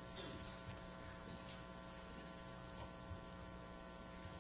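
Quiet room tone carrying a steady electrical mains hum, with a few faint clicks.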